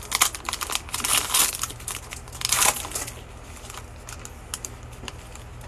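Foil wrapper of a Panini Chronicles Draft Picks trading-card pack crinkling and tearing as it is ripped open by hand. The crinkling dies down after about three seconds, leaving a few faint ticks.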